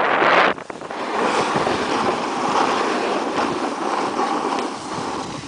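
Wind buffeting the camera microphone: a loud rushing that drops sharply about half a second in, then carries on steadily.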